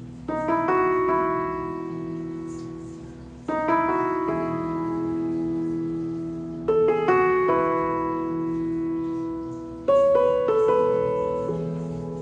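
Slow background piano music: a few notes struck together roughly every three seconds, each group left to ring and fade.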